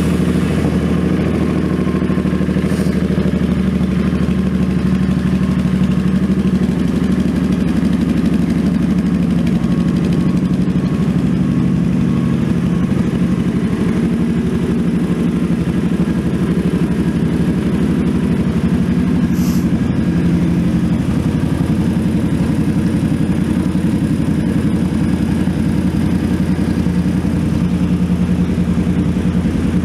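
2008 Suzuki Boulevard C50 (VL800) motorcycle's 805 cc V-twin idling steadily.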